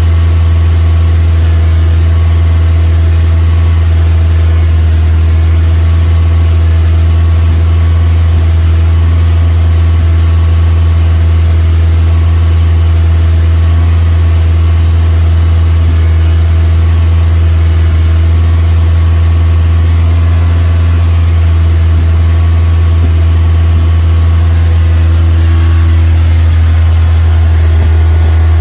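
Ford Zetec four-cylinder engine in a Westfield kit car running steadily at fast idle with a misfire.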